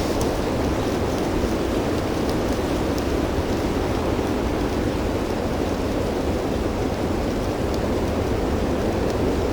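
Steady blizzard wind rushing and buffeting the microphone, an even low roar with a few faint ticks.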